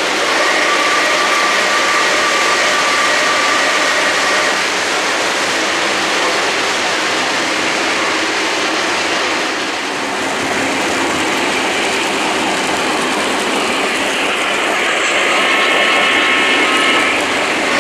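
O-gauge model trains running on three-rail track: a steady rolling clatter of metal wheels on rail, easing slightly about ten seconds in and building again near the end as another train passes close. A thin high steady tone sounds over it in the first few seconds and again near the end.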